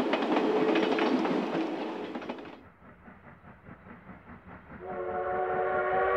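A train running on the rails, then duller, older-sounding film audio of a D51 steam locomotive. About five seconds in, its steam whistle starts and is held steady, several tones at once.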